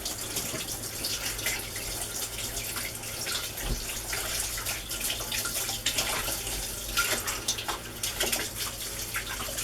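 Kitchen tap running into a sink while hands are washed under it, the water splashing irregularly.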